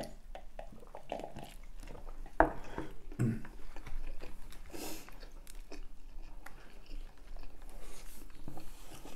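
Biting into and chewing a double Big Mac burger: soft, irregular chewing with small clicks, and one sharper click about two and a half seconds in.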